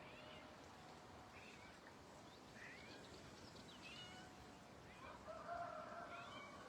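Quiet garden with scattered faint bird chirps. About five seconds in, a rooster crows once for about a second, the loudest sound here.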